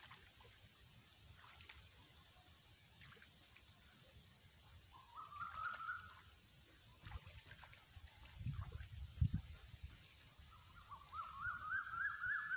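Shallow pond water sloshing and trickling as a person wades and gropes about in it, with a few low thumps about 8 to 9 seconds in. A bird calls twice in quick, rising, warbling series, about halfway through and near the end.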